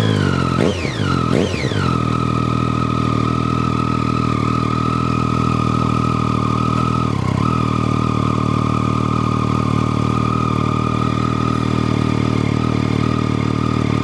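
2011 Triumph Street Triple's 675 cc inline-three through an Arrow Low Boy slip-on exhaust with no dB killer: the revs fall away, two quick throttle blips follow about a second in, then the engine holds a steady note.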